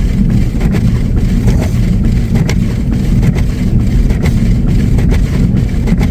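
Steady, loud low rumble of a truck driving through deep snow, heard from inside the cab: engine and tyre noise.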